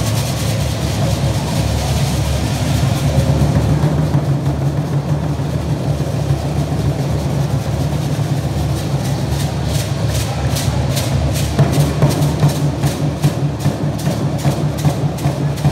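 Aztec-style dance percussion: large upright drums beaten steadily, with the dancers' seed-pod ankle rattles shaking in time. From about nine seconds in the rattling comes as sharp, regular strokes, about three a second.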